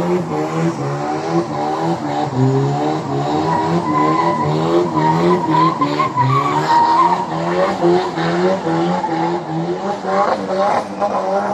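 A car doing donuts: the engine is held at high revs that waver up and down in quick repeated steps, with the tyres squealing as they spin and skid.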